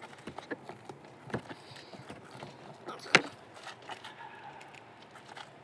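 Light clicks and knocks of camera gear and a tripod being handled at the open back of a vehicle, with one sharp knock about three seconds in.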